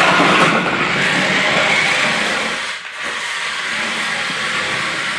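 Remote-control toy car running, its small electric motor and wheels making a steady whirring hiss that dips briefly about three seconds in.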